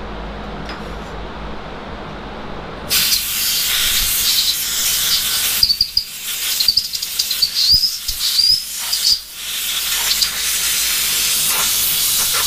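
Compressed-air blow gun hissing as it blows chips out of a CNC mill's vise and soft jaws. It starts about three seconds in, goes in short blasts for a few seconds, then runs as one long steady blast.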